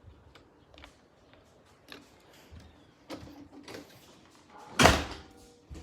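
A few faint clicks and knocks, then one loud, short thump about five seconds in.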